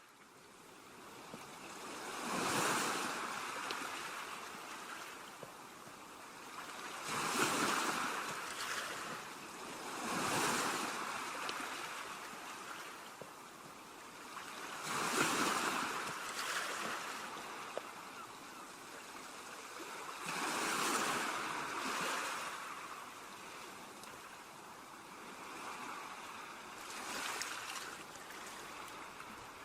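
Ocean waves breaking on a beach, each swelling into a rush of surf and then washing back, six times a few seconds apart, with a steady hiss of surf in between.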